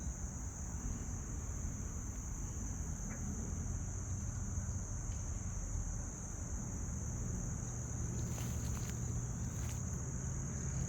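Crickets chirping in a steady, continuous high-pitched chorus, over a low rumble.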